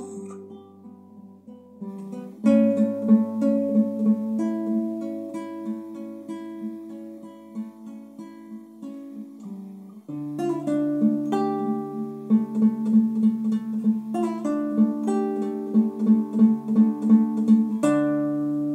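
Solo acoustic guitar played as an instrumental close to a song: a few soft notes at first, fuller picked chords from about two seconds in, louder again from about ten seconds with a low bass note under fast repeated picking, and a final chord left ringing near the end.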